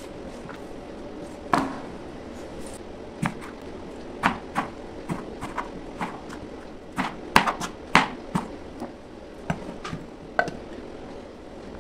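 Kitchen knife knocking on a plastic cutting board while slicing vegetables: irregular sharp knocks, the loudest bunched about halfway through, over a low steady hum.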